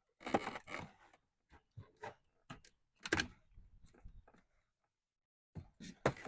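Hands handling plastic door-trim parts: scattered clicks, taps and short scraping rustles, with a louder scrape about three seconds in.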